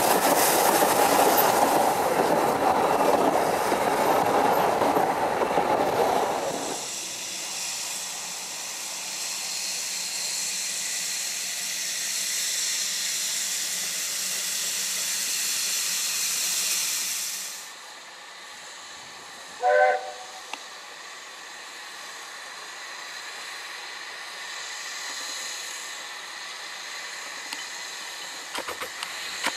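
Narrow-gauge steam train's carriages rumbling past close by, then a steady hiss of steam from a Garratt steam locomotive standing at a station. A short, loud steam-whistle toot comes about two-thirds of the way through, with a few light clicks near the end.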